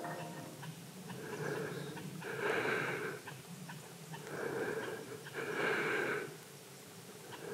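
A person breathing close to the microphone, slow and rhythmic, about one breath every three seconds, each drawn in two parts.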